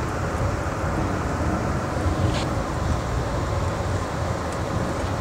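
Amtrak Hiawatha passenger coach rolling on the rails, heard from inside the car as a steady low rumble of wheels and running gear. A single faint tick about two and a half seconds in.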